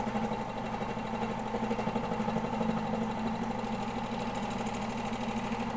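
Home-style serger (overlock sewing machine) running steadily at speed, stitching an overlocked seam that joins the beanie's panels.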